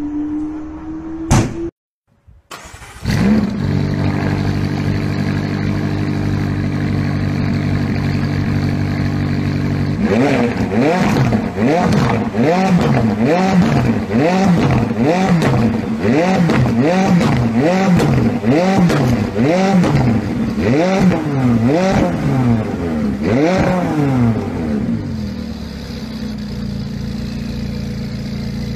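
Car engine revving hard. After a short break it holds a steady note, then is revved up and down over and over, about once a second, for some fifteen seconds, before settling back to a steady lower running note.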